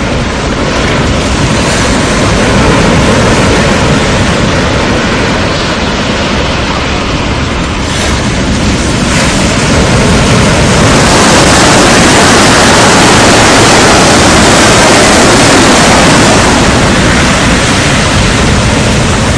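Strong wind over the sea, blowing across the microphone in a loud, even rush with the surf, growing louder about ten seconds in and easing off again near the end.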